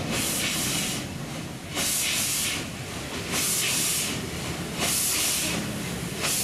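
Cape-gauge steam locomotive working a train, its exhaust giving slow, long hissing chuffs about one every second and a half over a low running rumble.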